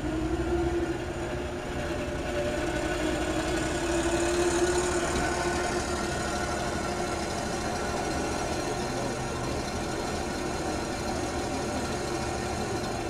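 Engines running: a zero-turn riding mower's engine, its tone wavering and fading over the first five seconds as it drives off, over a steady engine idle.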